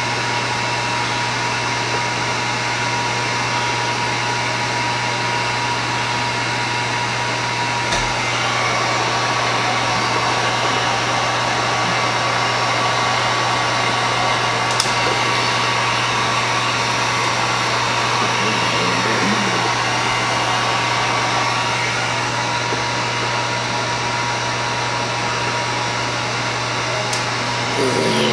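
Handheld electric heat gun running steadily over freshly poured epoxy resin, a continuous rush of blown air with a low motor hum and a faint whine. The whine shifts slightly in pitch about eight seconds in.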